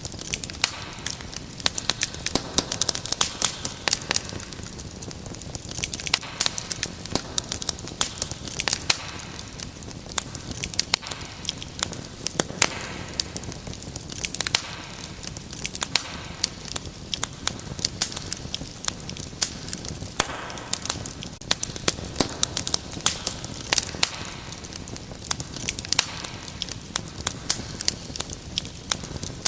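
Wood fire crackling: a steady run of sharp pops and snaps, several a second, over a soft hiss of burning.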